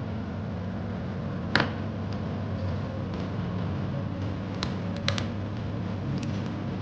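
A steady low hum under a few short, sharp clicks of metal kitchen tongs against a pan and raw chicken thighs. The loudest click comes about a second and a half in, and a quick run of smaller ones follows later.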